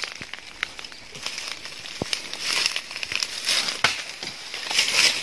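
Leaves and twigs rustling and crackling as a fruiting branch is pulled down and handled, with two sharp cracks, about two seconds in and again near four seconds.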